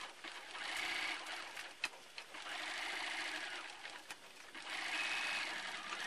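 Computerized sewing machine stitching through layered cotton fabric in three runs of a second or two each, stopping briefly between them, with a sharp click a little under two seconds in.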